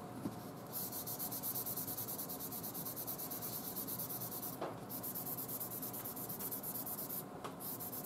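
Small hand-held sanding block with 800-grit paper dry-sanding a run in car paint, rubbing in rapid short strokes with a scratchy hiss. The rubbing starts just under a second in and breaks off briefly twice.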